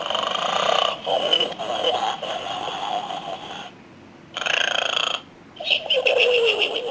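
Snoring from a toy pig: repeated rattly snores with short pauses between them.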